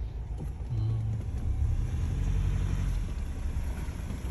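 Raptor pickup truck driving on a dirt track, heard from inside the cab: a low, steady engine and road rumble, with an engine drone holding for a couple of seconds.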